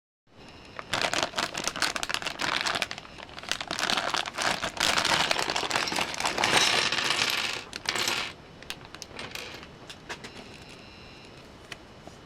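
Small plastic Lego pieces clattering and clicking together, with some crinkling of a plastic bag; a dense rattle for several seconds, thinning to a few scattered clicks near the end.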